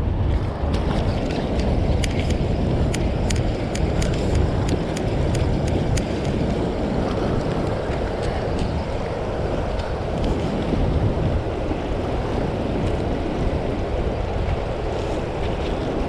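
Fast, churning river water below a dam's open flood gates, mixed with wind buffeting the microphone. A quick run of light clicks through about the first half.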